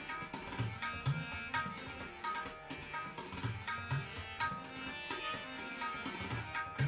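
Tabla played in a fast run of sharp strokes, with deep bass strokes from the larger drum (bayan) every second or so, over steady held notes from a harmonium accompaniment.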